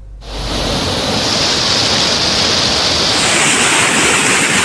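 Rushing floodwater: a loud, steady rush of turbulent water that shifts in tone about three seconds in.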